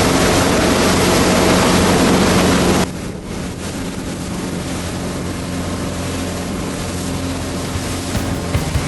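Motorboat engine running with a steady hum, mixed with rushing wind and water noise. About three seconds in, the sound drops suddenly to a quieter level and goes on steadily.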